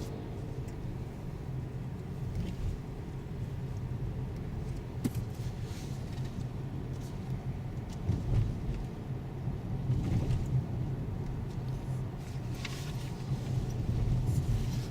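Road and engine noise inside a 2017 Toyota Corolla's cabin while it is driving: a steady low rumble that swells a little at times, with a few faint ticks.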